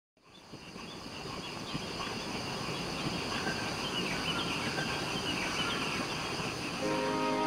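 Outdoor ambience fading in: many small birds chirping over a steady hiss. Soft music comes in near the end.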